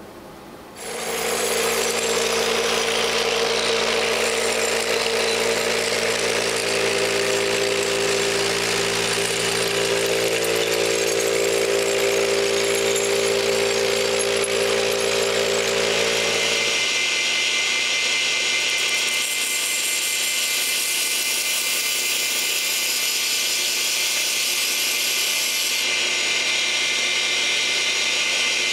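Electric power tool running steadily, with a steady motor whine. About two-thirds of the way through its pitch and character change, with the deep part of the sound dropping away.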